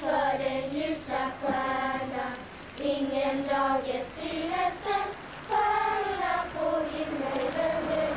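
A group of children singing a Lucia song together, a mix of short and longer held notes with short breaks for breath.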